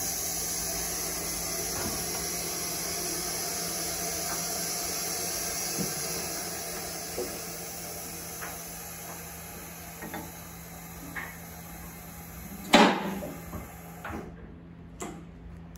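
Two-post hydraulic car lift lowering a car: a steady hiss with a low hum and a few light clicks and knocks. There is a loud clunk about thirteen seconds in, and the hiss stops about a second later.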